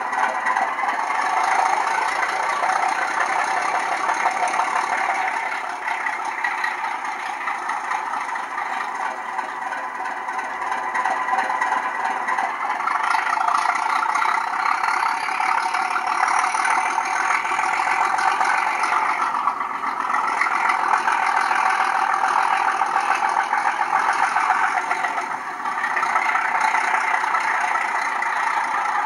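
Sampled diesel engine sound of a Ruston-engined Class 37 locomotive, played by a Loksound V4 DCC sound decoder through the small speaker of a model locomotive. The engine runs on steadily, grows louder about halfway through with a faint rising whine, and dips briefly a few times.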